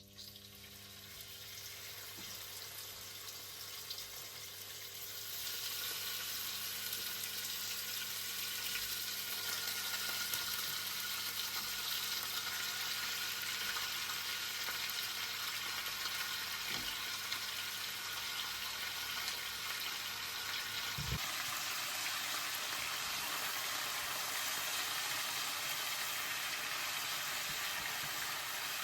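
Food frying in hot oil in a pan: the sizzle starts low, grows louder over the first five seconds, then holds steady.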